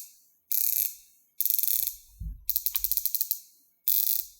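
Rolex Submariner 116610LN's unidirectional ceramic bezel being turned, ratcheting in quick runs of crisp clicks: four runs, each under a second long, about a second apart.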